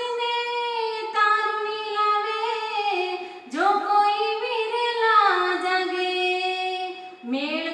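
A woman singing a Gujarati devotional bhajan with no instrument heard. She holds long notes that bend and slide between pitches, with a short breath about three and a half seconds in and another near the end.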